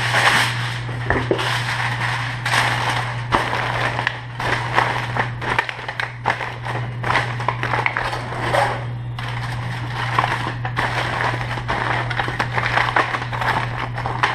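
Aluminum foil crinkling and crackling as it is pressed and folded around a disposable foil roasting pan, tenting a cooked roast to rest. A steady low hum runs underneath.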